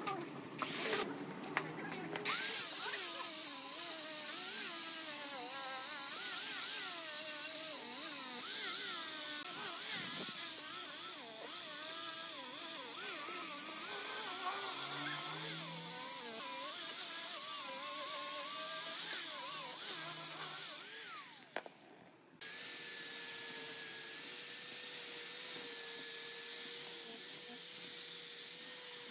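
High-speed rotary power tool working metal, its whine wavering in pitch as the load on it changes, after a few clicks at the start. After a cut about 22 seconds in, a steadier motor whine holds one tone.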